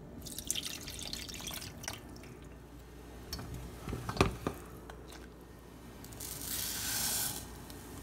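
Water boiling in a saucepan, bubbling with scattered small pops, with a sharp knock about four seconds in and a brief hiss about a second long near the end.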